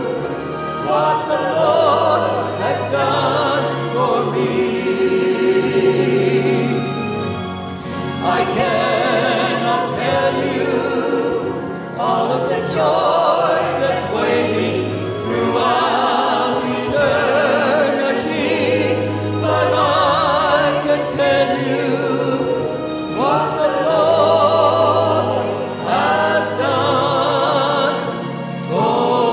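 A small mixed group of men's and women's voices singing a gospel hymn together in harmony, with sustained low instrumental notes beneath.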